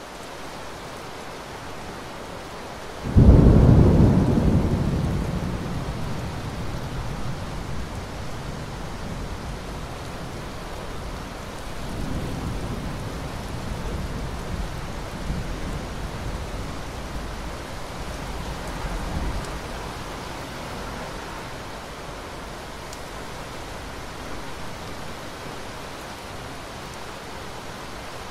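Steady rain with a sudden loud crack of thunder about three seconds in that rumbles away over several seconds. A second, softer roll of thunder follows from about twelve to nineteen seconds in.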